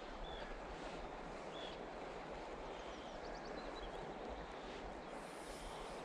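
Steady outdoor rushing noise, with a few faint, short bird chirps scattered through it.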